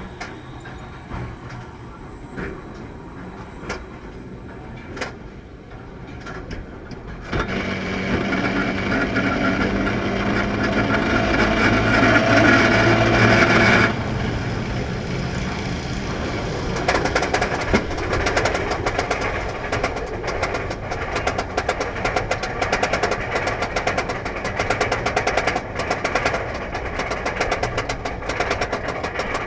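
Roller coaster train running on its track. A steady mechanical hum comes in about seven seconds in, builds, and stops abruptly about fourteen seconds in. Rapid, continuous clacking and rumble follow.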